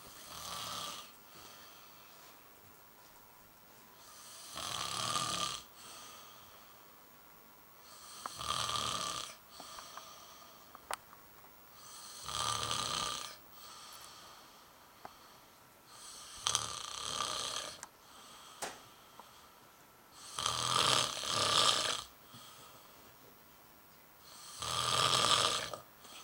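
A man snoring in a slow, even rhythm: seven rasping snores of about a second each, one roughly every four seconds, with quieter breathing between.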